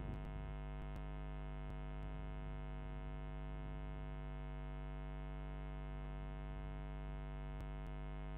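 Steady electrical mains hum with many even overtones. A few faint clicks of computer keys sound near the start and again near the end.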